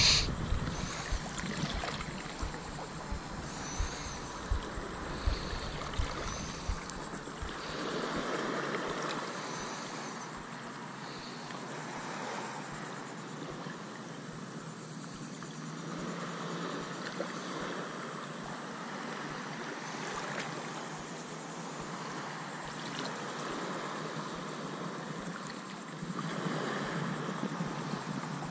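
Shoreline ambience: water lapping against jetty rocks and steady wind, with wind buffeting the microphone in low thumps during the first several seconds.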